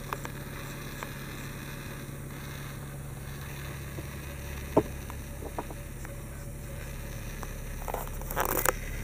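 Steady low hum inside a car's cabin, with one sharp click a little before the middle, a few fainter clicks, and a short rustle of handling near the end.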